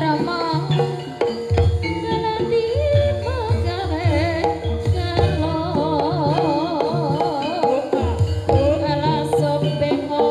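Javanese gamelan playing a gending live: kendang hand drums beating out the rhythm under ringing bronze kettle gongs, with a singer's wavering, ornamented melody line over the top.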